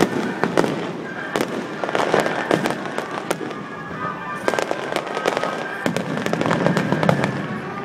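Fireworks display going off in quick succession: many sharp bangs and crackles, several a second, with music playing underneath.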